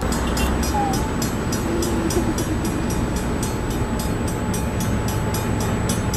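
Grade-crossing warning bell ringing rapidly, about three to four strokes a second, over a steady rumble of traffic and an approaching SEPTA Silverliner V electric multiple-unit train.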